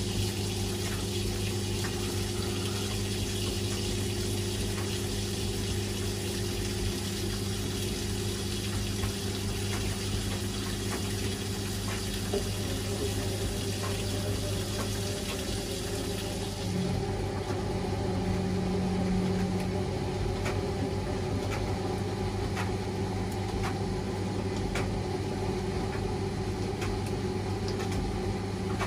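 Washing machine running mid-cycle: a steady motor or pump hum with a hiss of water. The hiss stops about 16 seconds in, a short higher hum follows, and then faint regular ticking.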